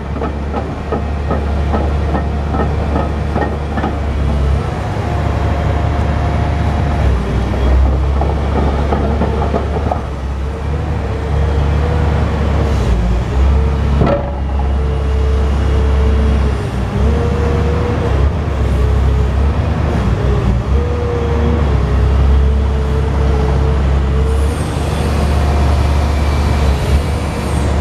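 Hitachi ZX870 excavator working: the diesel engine drones steadily under load, with a wavering hydraulic whine as the boom and bucket are moved. There is a sharp click about halfway through and a brief hiss near the end.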